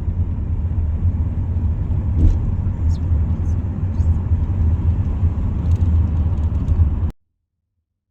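Steady low rumble of a car heard from inside while driving, cutting off abruptly about seven seconds in.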